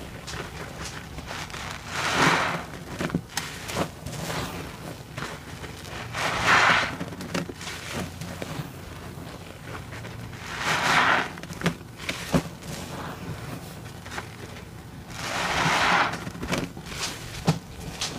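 Soapy sponge squeezed and wrung in a sink of sudsy water, four times, each squeeze a wet gush lasting about a second, with small squishes and clicks from the sponge and suds in between.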